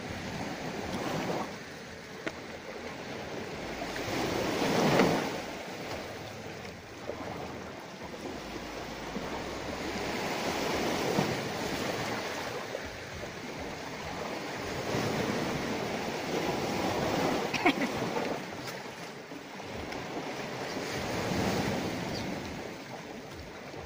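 Sea surf washing onto the shore, swelling and easing every few seconds and loudest about five seconds in. A single sharp click comes a little past the middle.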